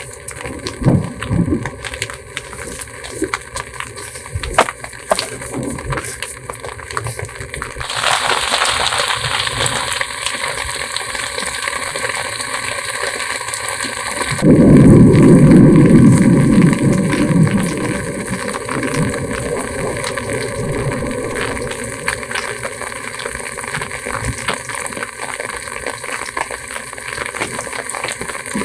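Scattered sharp knocks and cracks for about eight seconds, then a steady hiss of heavy rain starts suddenly and keeps on. About halfway through, a loud low rumble of thunder lasts about three seconds and then fades back into the rain.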